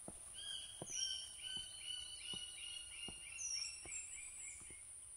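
A forest bird calling a long run of quick, repeated, slightly falling notes, with two higher down-slurred whistles among them. Footsteps on the trail sound under it about once a second, and a thin steady high whine runs throughout.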